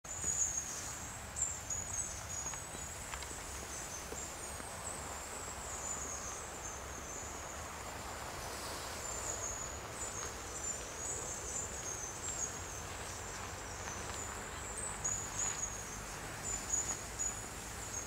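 Insects chirring in a steady high-pitched band that wavers slightly, over a low background rumble.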